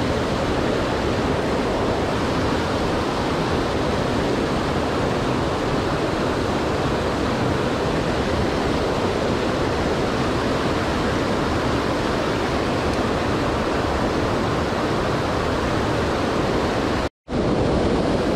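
Fast-flowing mountain stream water rushing steadily, close to a waterfall, cutting out abruptly for a moment near the end.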